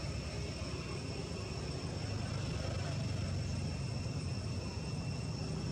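A distant engine drones low and steady, growing slowly louder, over a constant high-pitched insect whine.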